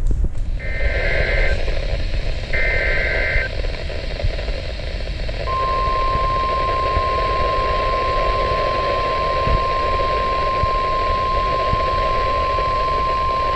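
NOAA Weather Radio Emergency Alert System tones over a hissing radio signal: two bursts of about a second each of the SAME digital header data, then about five seconds in the steady single-pitch 1050 Hz warning alarm tone begins and holds. The tones announce a severe thunderstorm warning about to be read.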